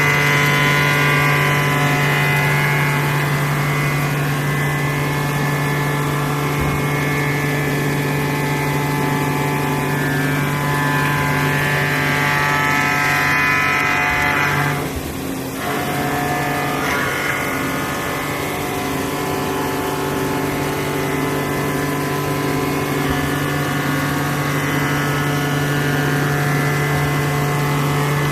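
Vertical machining center milling the side of a workpiece: a steady spindle hum with layered tones and cutting noise, which drops off briefly about halfway through and then resumes.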